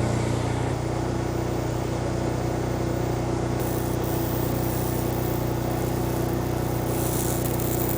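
Laser cleaning equipment running: a steady machine hum with a few fixed low tones. A high hiss joins about three and a half seconds in and grows stronger near the end.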